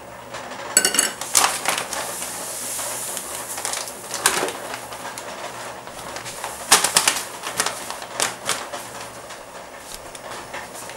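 Plastic bag crinkling and rustling in several sharp bursts as it is handled and folded, with light clinks of a metal measuring cup against a steel pot.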